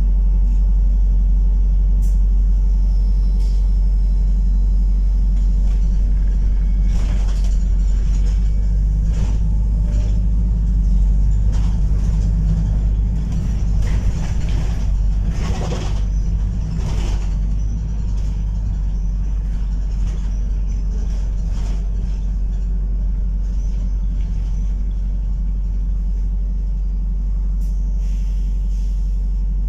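Inside a New Routemaster hybrid double-decker bus on the move: a steady low drone of the drivetrain and road rumble. Scattered knocks and rattles from the body come through the middle stretch.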